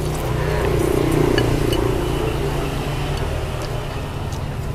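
A passing motor vehicle's engine and road noise, swelling about a second in and fading over the next few seconds, over a steady low hum, with a few small clinks.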